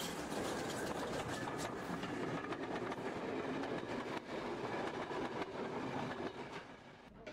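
Steam-hauled passenger train behind a GWR 94xx pannier tank passing close by, its wheels clattering over the rail joints, dying away near the end.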